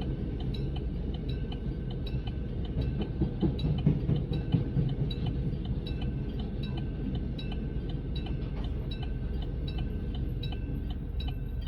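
Freight train running along the track: a steady low rumble with sharp, regular clicking a few times a second.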